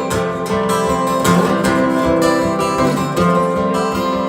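Live band playing an instrumental bar between vocal lines: a strummed acoustic guitar over sustained chords and a steady low beat.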